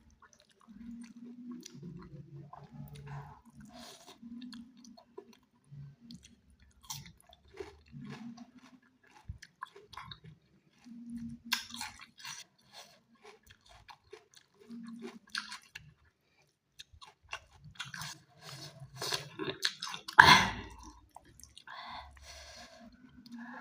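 Close-miked chewing of chicken: wet smacks, mouth clicks and crunches in an irregular rhythm, with one loud sharp crunch, the loudest sound, about three-quarters of the way through.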